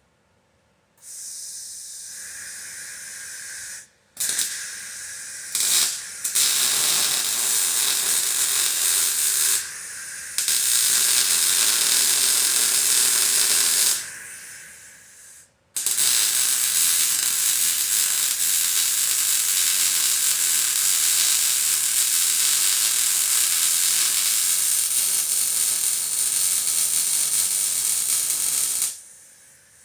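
Welding arc hissing and crackling in several runs of a few seconds each, then one long run of about thirteen seconds, as the rock sliders are welded on.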